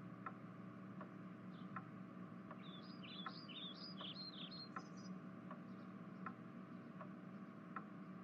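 Faint bird chirps in a quick run about three to five seconds in, over a low steady hum with soft ticks about twice a second.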